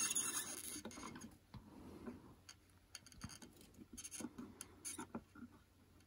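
Faint scattered small ticks and scratches of hand soldering on a guitar volume potentiometer: the soldering iron tip and solder wire touching the pot's lug and metal casing.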